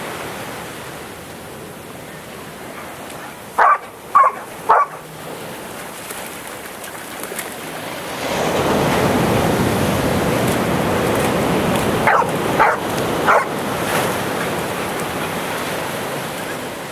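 A dog barking in short sharp barks, three in quick succession twice, over steady ocean surf that swells louder about eight seconds in.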